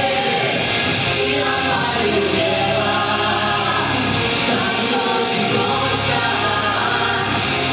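Vocal ensemble singing a song together over a loud instrumental accompaniment with a steady bass.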